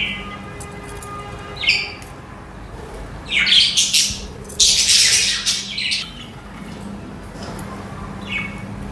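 Budgerigars chirping and squawking: short high chirps every few seconds, with louder, harsher chatter from about three to six seconds in, over a faint steady low hum.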